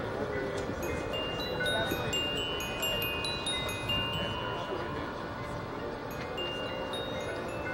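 Chimes ringing a scattered, irregular shimmer of short high tones over a low crowd murmur.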